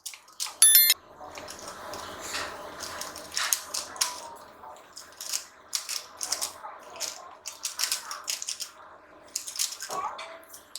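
Rubik's cubes being turned rapidly by hand, the plastic layers clicking and clattering in quick, irregular strokes.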